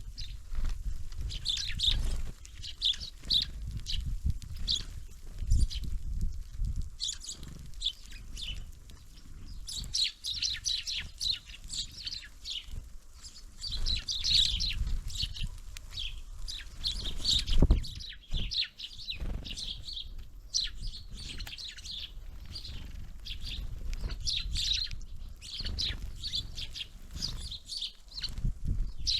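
Small birds at a feeder chirping and calling in quick, overlapping bursts, with a few short low thumps and the flutter of wings mixed in.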